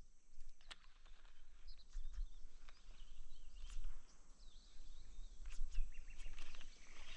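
Quiet outdoor ambience with scattered light clicks and ticks, brief bird chirps and a steady low rumble.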